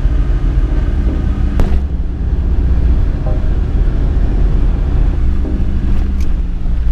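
Steady low rumble of a car cabin while driving, from road and engine noise, with a single sharp click about a second and a half in.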